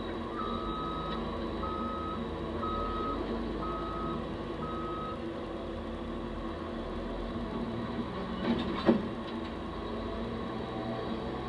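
Backup alarm on snow-clearing heavy equipment beeping five times, about once a second, over the steady running of the machines' diesel engines, including a Caterpillar 140H motor grader. Two sharp clanks come about eight and a half seconds in.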